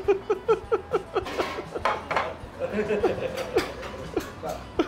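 A person laughing in quick runs of short "ha" pulses, about five a second, with dishes and cutlery clattering.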